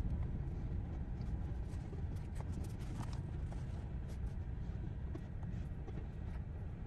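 Freight train rolling past the crossing, heard from inside the stopped car: a steady low rumble with scattered light clacks of wheels over the rails.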